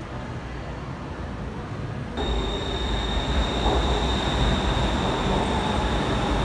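BTS Skytrain train pulling into an elevated station: a heavy low rumble that comes in sharply about two seconds in, with a steady high whine over it.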